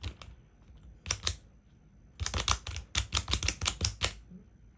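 Plastic clicking of a 3x3 Rubik's Cube sliding puzzle being worked by hand, its pieces sliding and snapping into place: two clicks about a second in, then a quick run of a dozen or so clicks over about two seconds.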